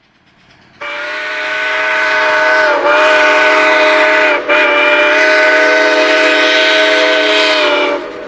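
Steam locomotive's whistle blowing one long, loud blast of several tones together as the train approaches. It starts about a second in, dips briefly twice, and cuts off about eight seconds in, leaving fainter train noise.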